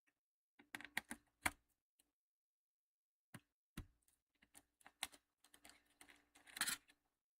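Scattered small clicks and taps of laptop parts and screws being handled during reassembly, with a cluster about a second in, one low thump near four seconds in, and a run of light clicks after it.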